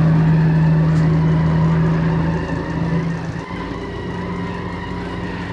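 Tires of an Edison Motors electric truck squealing on a smooth concrete floor as it manoeuvres at low speed, a steady tone that weakens and drops a little about halfway through. The electric drive is otherwise so quiet that the tire squeal is the only thing heard.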